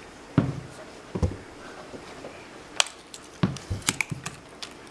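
Objects being handled and set down on a workbench: a string of irregular knocks and clicks, the loudest about half a second in.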